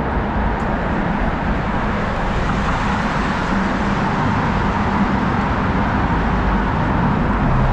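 Cars driving close past on a road: a steady, loud wash of engine and tyre noise.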